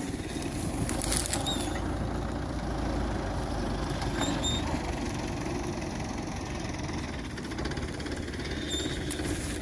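Farm tractor's diesel engine idling steadily, a low even rumble, with the hitched straw-chopper not yet running.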